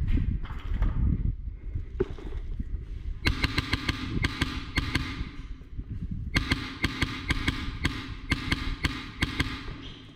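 Airsoft gun firing on full auto in two long bursts of rapid shots, each about three seconds long, starting about three seconds in, with a steady motor whine under the shots. Low thumps and rustling of movement come first.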